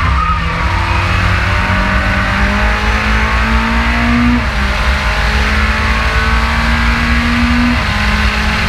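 Race car engine accelerating hard, heard onboard from the front of the car: its pitch climbs steadily and drops back at upshifts about four and eight seconds in, over a heavy low rumble.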